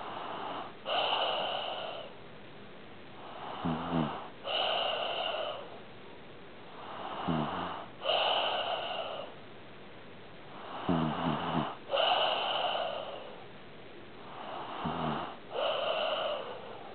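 A sleeping pet snoring in slow, regular breaths about every three and a half to four seconds. Each breath has a short, low, fluttering rattle and a longer, louder airy breath.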